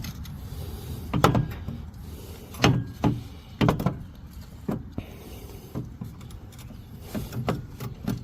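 Irregular clunks and knocks of metal mower parts being handled and turned by hand, about eight in all, over a low steady rumble.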